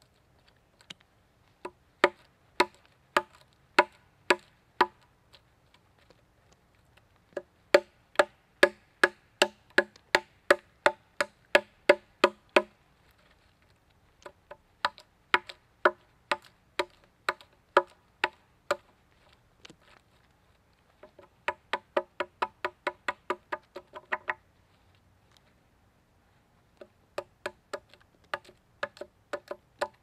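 Hatchet chopping into a log: sharp woody strikes with a short ringing tone from the log. They come in runs of several blows, about two a second and quicker in one run, with short pauses between runs.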